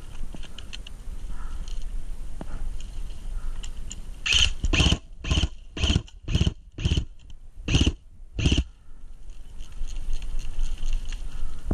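Airsoft rifle firing single shots: about eight sharp shots at an uneven pace, roughly half a second apart, starting about four seconds in and stopping about four seconds later.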